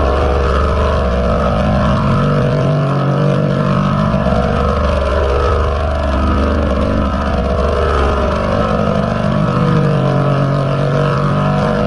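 Loud, continuous, heavily distorted audio made of several layered copies of the same sound, giving a dense drone with wavering pitch bands, as in a 'G Major' audio-effect edit.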